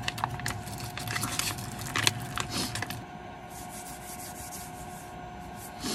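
Plastic drink pouch with frozen contents crinkling and crackling as it is squeezed and bitten: a dense run of sharp clicks and crackles that stops about three seconds in. A faint steady hum runs underneath.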